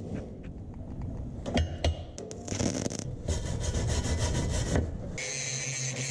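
A hand tool scrubbing and knocking at a fresh weld on a steel tube frame, with a few sharp strikes about two seconds in. About five seconds in, an electric angle grinder starts and runs steadily, grinding the weld.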